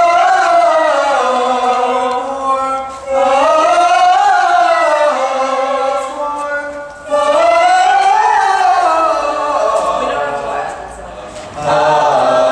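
An a cappella vocal group singing held chords without instruments, in long phrases that rise and fall in pitch, with short breaks between them.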